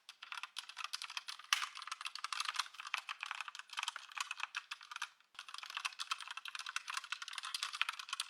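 Fast typing on a budget 68-key hot-swappable mechanical keyboard: a dense run of crisp keystroke clicks, with a brief pause about five seconds in.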